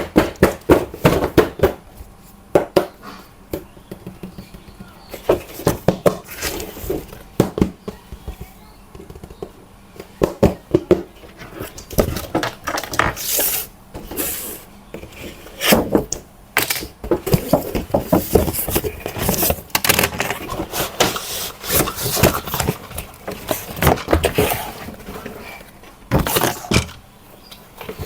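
Plastic RC toy parts and packaging being handled: irregular clicks, knocks and scrapes, with no motor running.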